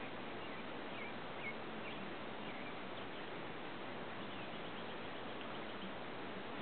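Steady outdoor background hiss with faint bird chirps scattered through it.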